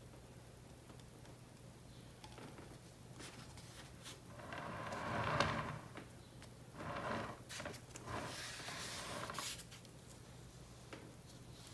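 Handling noise: rustling and scraping in a few bursts, the loudest about five seconds in, as a painted canvas is lifted and tilted on a turntable by gloved hands.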